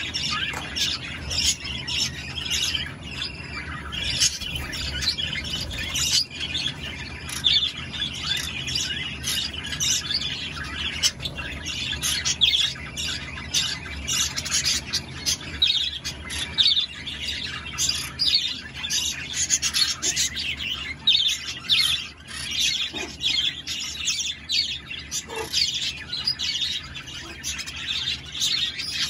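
Several green-cheeked conures chattering: a constant stream of short, high chirps and squawks overlapping one another.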